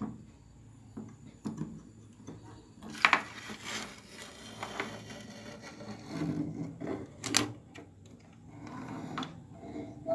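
Irregular clicks, knocks and scraping as a CRT TV's main circuit board is handled and turned over by hand, with two sharp clicks about three and seven seconds in.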